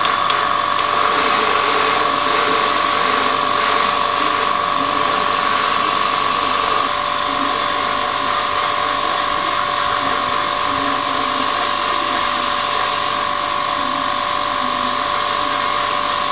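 Hobby spray booth's extractor fan running with a steady hum while paint is sprayed onto small model parts in hissing bursts, the hiss stopping briefly several times; the loudest burst comes between about five and seven seconds in.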